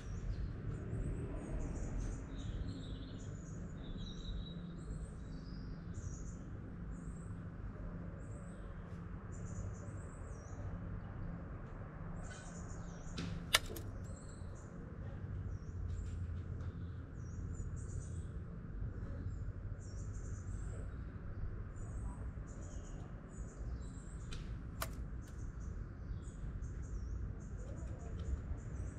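Two sharp, quiet clicks about eleven seconds apart, the first the louder: shots of an Ares Striker 01 spring bolt-action airsoft rifle with a homemade silencer packed with mixed kitchen and floral foam, heard from some 15 to 30 metres off. Birds chirp throughout over a low outdoor rumble.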